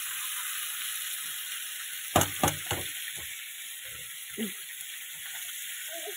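Chopped Malabar spinach and vegetables sizzling steadily in hot oil in a pan, just added to the fried spices. About two seconds in there is a quick run of three sharp knocks, with a few fainter knocks later.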